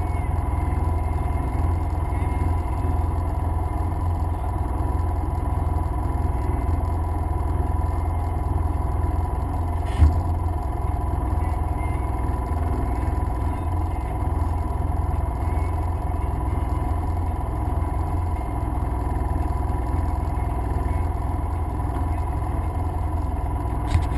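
Off-road vehicle engine idling steadily at close range, a low even rumble. There is a single knock about ten seconds in and another knock near the end.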